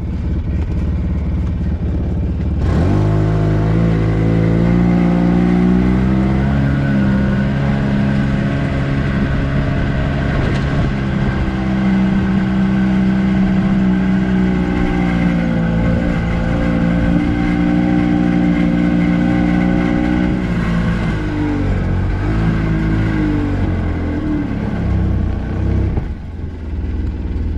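Motor vehicle engine running as it drives: a low rumble that picks up about three seconds in, holds a steady pitch with small rises and dips, then eases back to a lower rumble about twenty seconds in.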